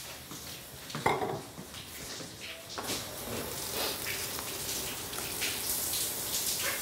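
Bathroom sink tap running, a steady hiss that starts about three seconds in, with small clinks of things on the counter and one sharp knock about a second in.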